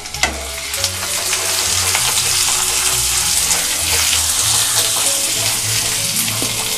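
Chopped onions and green chillies sizzling in hot mustard oil in a nonstick kadai while a silicone spatula stirs them, frying them toward brown. The sizzle starts with a single sharp knock and swells after about a second.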